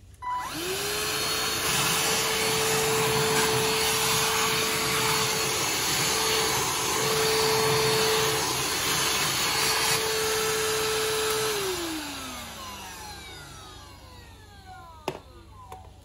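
Khind cordless handheld vacuum cleaner switched on, its motor spinning up within half a second and running at a steady pitch with a rush of air for about eleven seconds. It is then switched off, and its whine falls in pitch as the motor spins down. A single sharp knock near the end.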